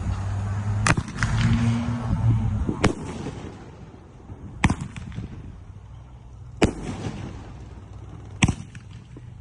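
2-inch pro-line firework cake firing: six loud, sharp reports, coming about every two seconds after a quick pair at the start.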